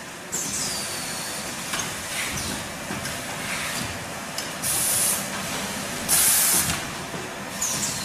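Tissue paper converting machine running steadily, with two loud bursts of air hiss from its pneumatic cylinders, about four and a half and six seconds in. Short falling whistles come near the start and near the end.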